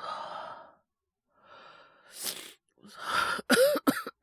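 A young man's breathy sighs and a sharp intake of breath, then several short coughs in quick succession near the end, acted as a boy coming down with a cold.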